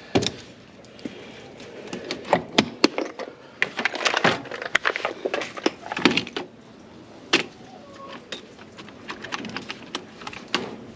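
Irregular clicks, knocks and light rattles of parts being handled, busiest in the middle: a deer feeder's corn-slinging spinner and timer unit being worked on during assembly.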